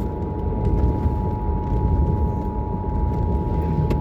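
Emergency Alert System two-tone attention signal from a radio, a steady dual-pitch tone that cuts off at the end, announcing a flood bulletin. Under it is the steady low rumble of the truck running.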